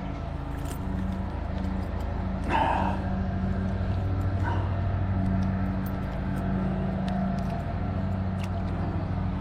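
A motor running at a steady speed, giving an even low hum with a short, brighter sound about two and a half seconds in.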